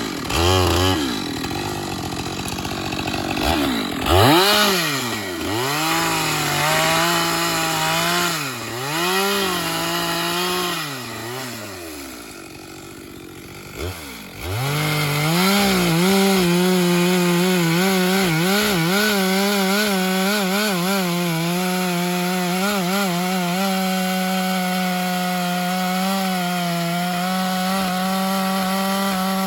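Two-stroke chainsaw revved up and down several times, then settling for a moment before climbing back to steady high revs, held through a long cut into wood.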